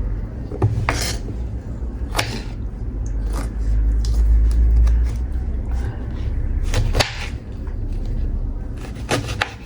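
Kitchen knife cutting a nibuwa lemon on a chopping board: a handful of sharp knocks as the blade goes through and strikes the board, two close together near the end, over a steady low rumble.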